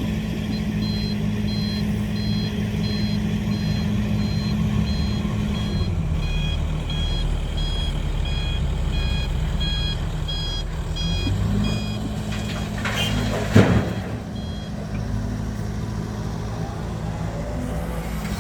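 A six-wheel dump truck's reversing beeper sounds in rapid repeated beeps for about the first eleven seconds, over its diesel engine running. The truck is backing up to be loaded. There is a brief sharp noise about thirteen seconds in.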